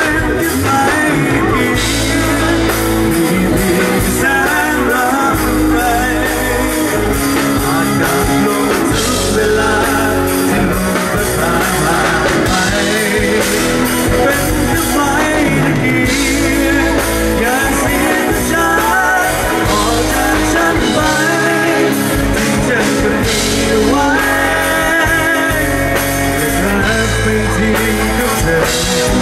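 Male vocalist singing live into a handheld microphone, backed by a band with a drum kit and keyboard, through a PA system.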